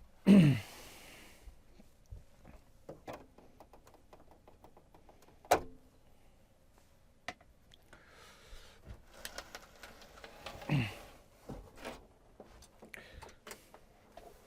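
A man lets out a long, breathy sigh that falls in pitch, then a sharp click about five seconds in and scattered light clicks and handling noise, with a second, softer falling sigh near eleven seconds.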